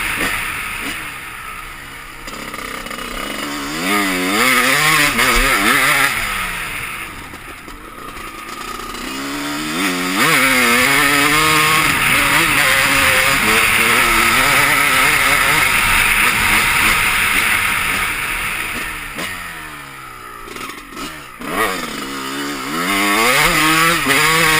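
Dirt bike engine revving up and down over and over, its pitch rising and falling, growing louder and fainter as the bike rides near and away.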